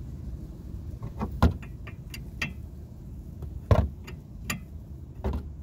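Steel combination wrench clinking and clanking against a tie rod jam nut as the loosened nut is worked and the wrench comes off: a handful of short, sharp metallic clicks, the two loudest about a second and a half in and just under four seconds in.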